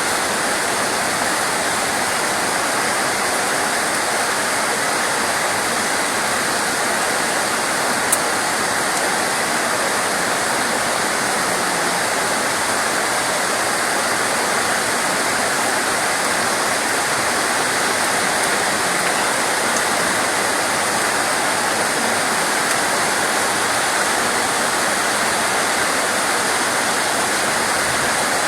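Steady, heavy rain: an even rushing hiss that does not change, with one brief click about eight seconds in.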